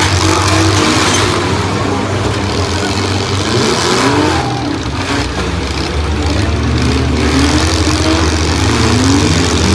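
Several demolition derby cars' engines revving hard, their pitch rising and falling again and again as the cars accelerate and back off while hunting for someone to ram.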